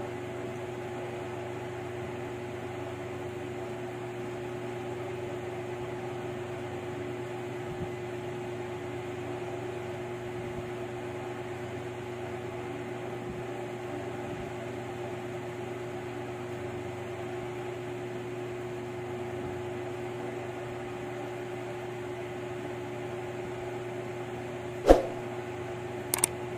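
Steady machine hum with a constant mid-pitched tone and an even hiss underneath. Near the end come a sharp click and then a couple of quick clicks as a subscribe-button animation starts.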